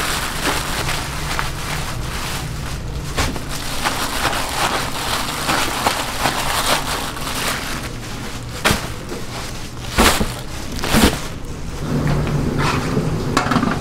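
Food being cooked at a street-food stall: a dense, steady crackling hiss over a low hum, with a few sharp knocks of utensils in the second half.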